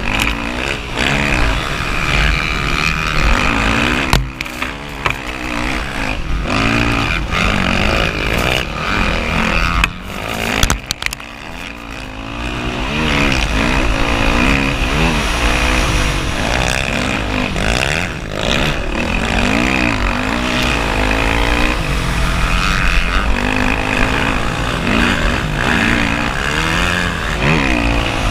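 Dirt bike engine revving up and down again and again as it is ridden hard over sand, heard from a camera on the bike or rider, with heavy wind buffeting on the microphone. There are a few sharp knocks, and the engine eases off briefly a little before halfway.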